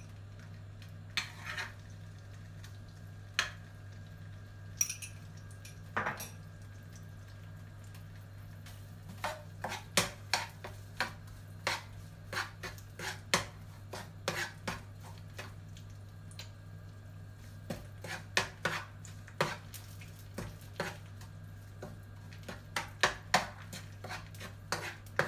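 A metal spoon and then a spatula clinking, knocking and scraping against a nonstick wok as chilli paste and palm sugar are stirred in. The taps come irregularly, sparse at first and much busier from about nine seconds in, over a steady low hum.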